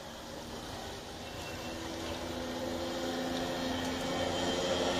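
A steady engine drone with several pitched tones, growing slowly louder from about a second and a half in, then cutting off suddenly.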